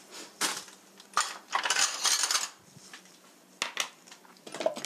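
A small ceramic dish and a metal spoon clinking against other dishes as the dish is set down on the table, with a short rustle in between.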